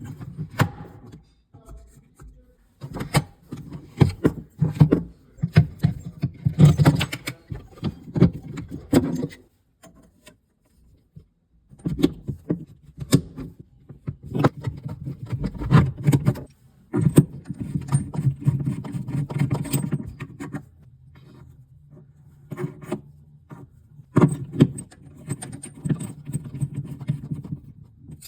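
Plumbing parts and tools being handled and fitted: repeated clicks, knocks and scrapes coming in clusters with short pauses.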